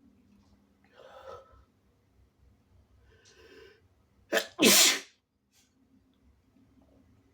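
One loud sneeze from a man who is sick, four and a half seconds in, a short catch and then the full burst; he is inducing the sneezes. Two softer breathy sounds come before it.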